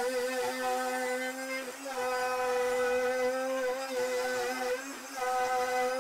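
Plunge router running with a steady high whine, its half-inch straight bit cutting a mortise in a wooden rail. The pitch and loudness dip briefly twice, about two and five seconds in.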